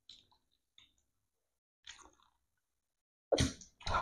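Faint sips and swallows of people drinking iced drinks from plastic cups, a few soft separate sounds, then a louder sudden sound near the end as they finish.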